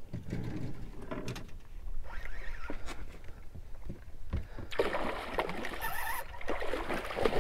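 Hooked redfish splashing and thrashing at the water's surface beside the boat, starting about five seconds in, after a stretch of scattered small knocks and clicks.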